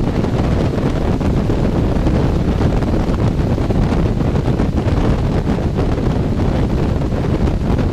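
Trane portable HVAC unit's blower fan running steadily in heat mode, a loud, even rush of air, with the condenser fan and refrigerant compressor switched off.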